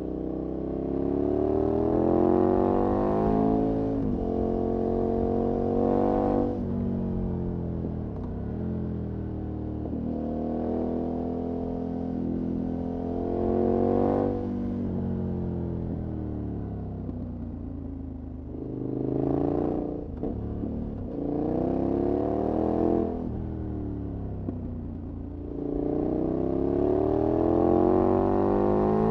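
KTM 1190's V-twin through a Remus aftermarket exhaust, heard from the rider's seat while underway: the revs climb in surges of a few seconds, each ending in a sharp drop, about six times.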